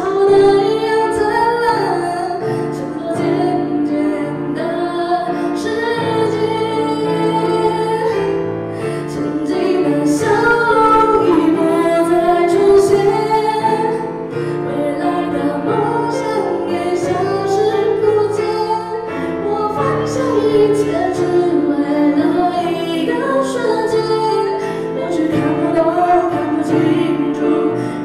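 A woman singing a Mandarin song while accompanying herself on a grand piano.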